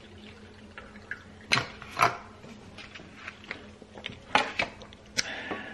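Kitchen handling sounds: a handful of sharp knocks and taps as a coffee bottle and a stainless steel tumbler are set down and picked up on a countertop, with a short scrape near the end, over a faint steady hum.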